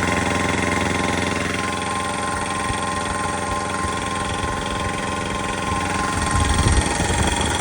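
McGraw 29-gallon oil-lube belt-drive air compressor running: a 1.8 HP electric motor driving a V-style cast-iron pump, a steady mechanical drone with a constant whine, not that loud.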